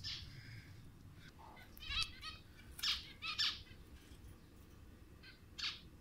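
Lutino budgerigar calling: a run of short chirps between about two and three and a half seconds in, then two more near the end.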